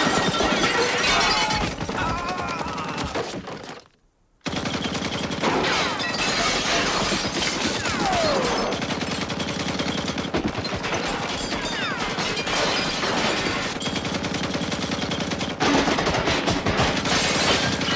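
Sustained machine-gun fire from the killer truck's gun turret, a dense rapid hail of shots that cuts out for a moment about four seconds in and then resumes.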